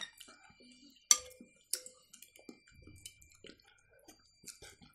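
Spoons clinking against soup bowls during a meal: three sharp taps with a ringing tone, near the start, about a second in and just under two seconds in, with smaller clicks between.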